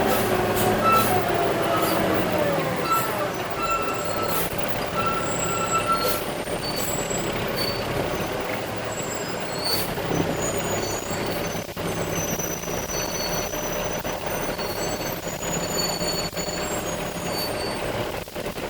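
Concrete mixer truck whose engine drops in pitch over the first three seconds, then runs on low and steady, with many short high squeals and a few sharp clicks scattered through it.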